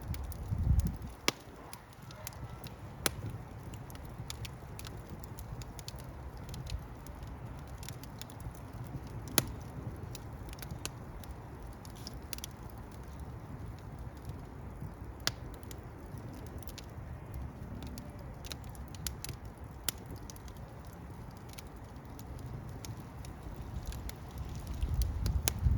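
Wood fire crackling, with sharp pops at irregular intervals over a low steady rumble. The rumble swells about a second in and again near the end.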